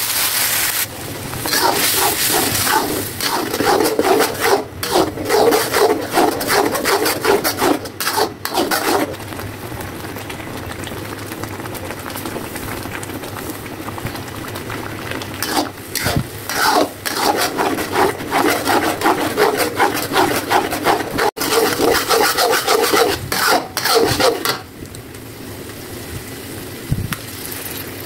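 Metal spatula scraping and stirring chili paste around a wok, in two long runs of quick rasping strokes, the second starting about halfway through. The paste sizzles in the hot oil in the stretches between.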